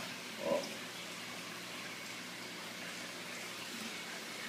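Steady hiss of background noise, with one short, soft sound about half a second in.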